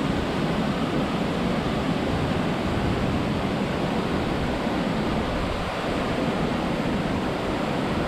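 Waterfall in spate, swollen with rain: muddy water rushing over rock ledges and down a rocky stream bed, a steady, unbroken rush of noise.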